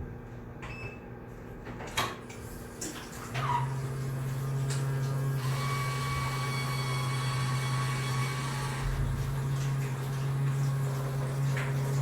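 Shared study room ambience: a few small clicks and knocks, then a steady low mechanical hum starts about three seconds in. A higher whine rides on the hum for a few seconds in the middle.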